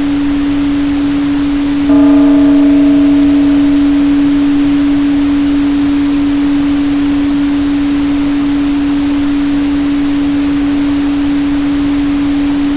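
Steady 285 Hz pure tone over a constant hiss of pink noise. About two seconds in, a struck bell-like chime sounds with several overtones and slowly fades away.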